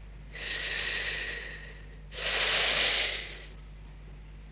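A person taking deep breaths through a spirometer's mouthpiece and hose during a lung function test: two long breaths of a second or more each, the second louder.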